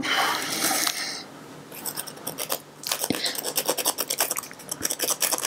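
Whole nutmeg grated on a small metal hand grater: quick rasping scrapes, several a second, starting about a second and a half in after a brief rustle.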